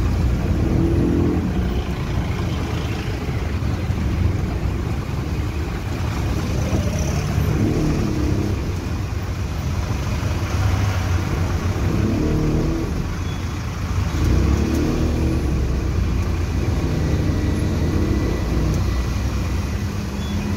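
Auto-rickshaw engine running and road noise heard from the passenger seat of the open-sided cab in traffic, the engine note rising and falling several times with the throttle.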